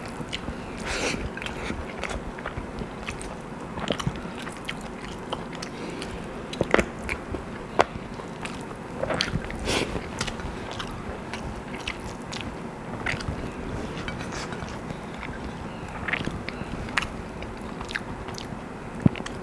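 A person eating rice and chicken curry by hand, chewing close to the microphone, with many short sharp clicks scattered through.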